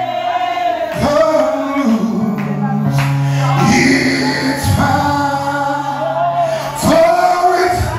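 Live gospel worship music: a keyboard holding long low chords under a singer's wavering voice, with a few sharp hits.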